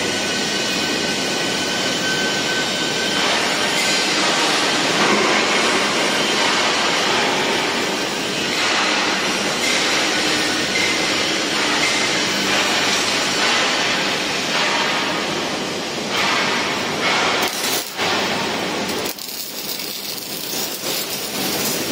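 Steady loud machinery noise in a workshop hall, with occasional metal clinks. It dips briefly just before the end and runs quieter for the last few seconds.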